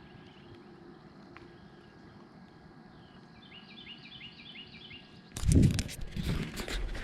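Quiet outdoor ambience with small birds chirping: a quick run of short, repeated chirps about three to five seconds in. Near the end come loud bumps and rustling, much louder than the birds.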